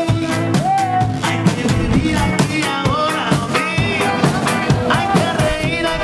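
Upbeat rock music with singing and a steady drum beat.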